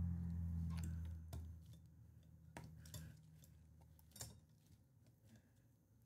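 A few faint, separate clicks and taps of roofing-nailer head parts being handled and fitted back together, over a low note that dies away in the first second or so.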